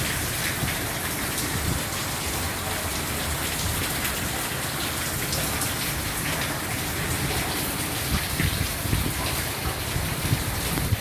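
Heavy rain with hail pelting down: a dense steady hiss of rain speckled with small sharp ticks, over a low rumble of strong wind on the microphone. A few louder hits stand out near the end.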